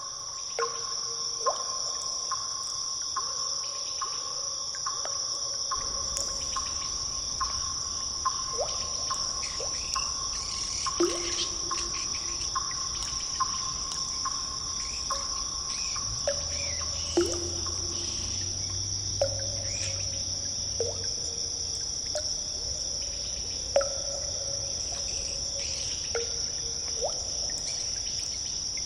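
Cave ambience: water drops falling into pools, each a short plink with a brief pitch glide, about one a second at irregular intervals, over a steady high-pitched drone.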